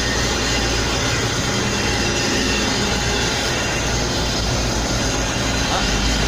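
Steady, loud mechanical noise with a deep rumble underneath, from heavy machinery running close by.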